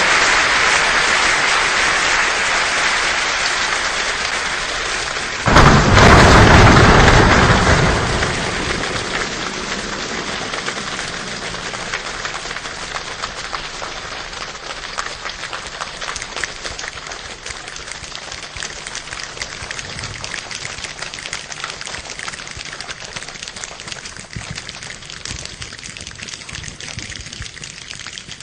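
Steady rain, with a sudden loud clap of thunder about five seconds in that rumbles and dies away over a couple of seconds. After it the rain goes on as a dense crackling patter that slowly grows quieter.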